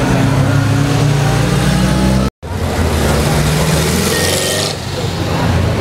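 Vintage sports car engine running at low revs as the car moves off slowly, with crowd chatter behind. After a break in the sound, an engine revs up, its pitch rising for a couple of seconds.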